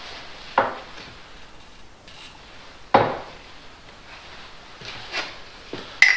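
Engine parts and tools being handled at a workbench: a few knocks, the loudest about halfway through, and a sharp clink that rings briefly near the end.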